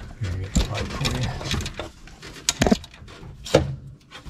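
Small 3/8-inch ratchet working an alternator mounting bolt in short uneven spurts, with mechanical clicking and a few sharper knocks as the bolt is snugged down.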